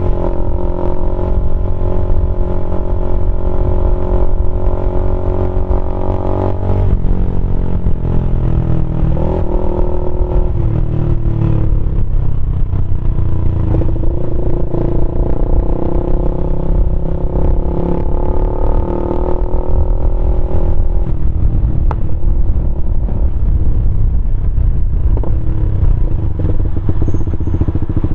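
Keeway RKF 125's exhaust running open through a GPR Deeptone silencer with the dB killer removed, the bike under way. The engine note holds steady, changes sharply about seven seconds in, then rises and falls with the throttle.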